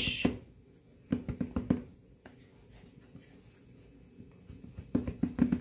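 Hands handling a plastic wipes tub, pressing on its snap-on lid. Two short bursts of rapid plastic clicking and rattling, about a second in and again near the end.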